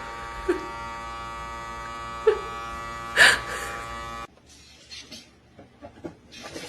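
A steady electric buzz, like a small motor, with a few short sharp sounds over it and one louder burst about three seconds in. It stops abruptly after about four seconds, giving way to quieter scattered clicks.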